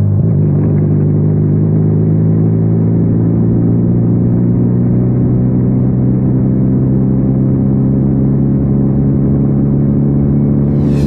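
Benelli 302R's parallel-twin engine running steadily, its pitch shifting slightly just after the start and then holding almost level.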